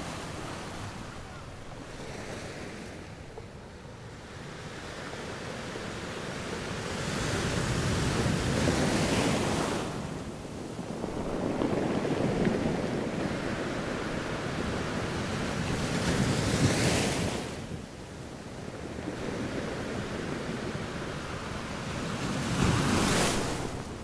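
Small sea waves breaking and washing up a sandy beach. The surf swells and falls back in several slow surges a few seconds apart.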